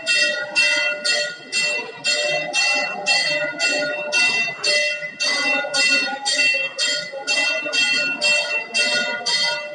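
Temple bell rung rapidly and steadily during aarti, about two and a half strokes a second, each stroke ringing on into the next.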